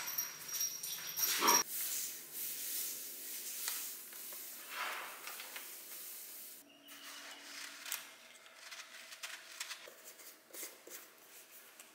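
A dog briefly moving about on a tiled floor, then salt poured from a plastic bag into a glass jar with a soft, steady hiss. The jar's lid is then handled and screwed on with light scraping clicks.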